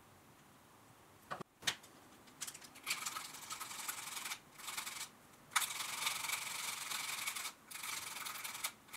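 Two sharp snips as side cutters clip the unused feet off a metal watch dial, then the cut stubs on the dial's back are filed flush with a flat hand file: several runs of quick rasping strokes with short pauses between them.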